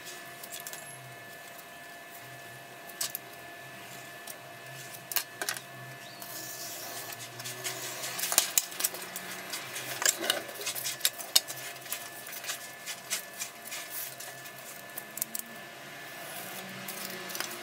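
Taps and clicks of a foamcore board and steel ruler being handled on a cutting mat, with a craft knife scraping as it cuts through the foam along the ruler in the middle stretch.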